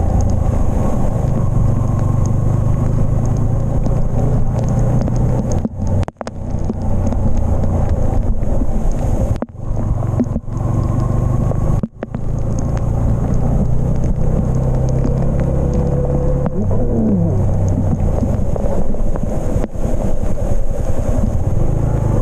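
Yamaha MT-15's single-cylinder engine running steadily at low road speed under wind noise, the sound of a motorcycle ridden slowly. The sound cuts out briefly a few times in the middle.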